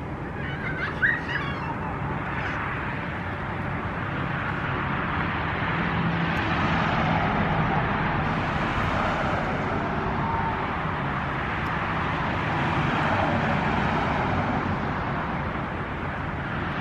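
Kids' scooter wheels rolling over pavement: a steady rolling hiss that swells in the middle and eases near the end.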